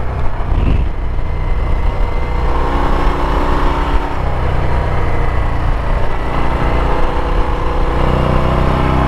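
Harley-Davidson Ultra Limited's V-twin engine running as the bike rides through curves, heard from the rider's seat along with road and wind noise. The engine note comes through more strongly about two and a half seconds in and again from about six seconds on.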